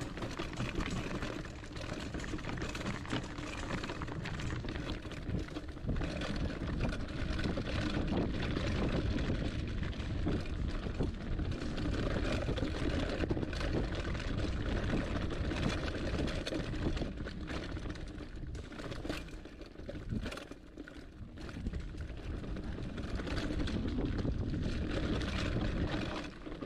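Hardtail mountain bike riding down a rocky, leaf-covered trail: tyres rolling over rocks and roots, the bike rattling with many small knocks over a steady low rumble, easing briefly about twenty seconds in.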